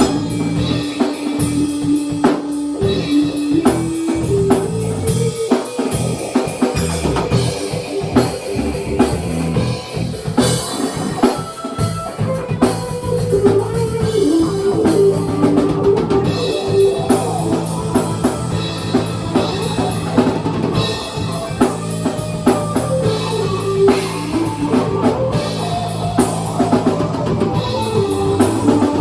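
A small rock band jamming live and improvised: a drum kit keeping a steady beat with guitar playing over it.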